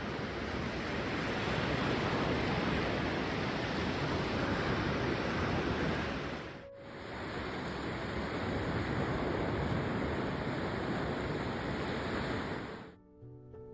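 Sea waves washing onto the shore as a steady rushing noise, with a little wind on the microphone. The sound briefly dips about halfway through, and near the end the surf stops and music begins.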